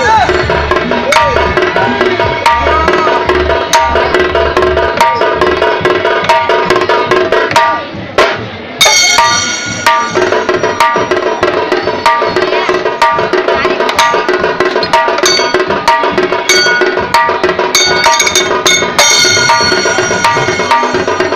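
Karadi majalu folk percussion band playing: barrel drums beaten with a stick and the hand in a fast, steady rhythm, with a held, pitched melody line over the drumming. The music breaks off briefly about eight seconds in, then carries on.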